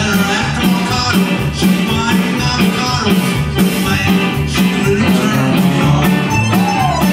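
A Tex-Mex band playing live over a steady beat: accordion, trumpet, electric guitar, bass, keyboard and drums.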